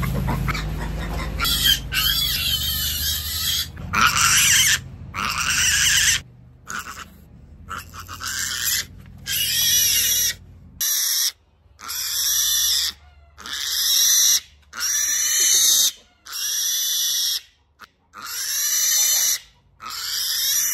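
Piglet squealing over and over while being caught and held. Loud, high-pitched squeals of about a second each come one after another with short breaks, starting about a second and a half in.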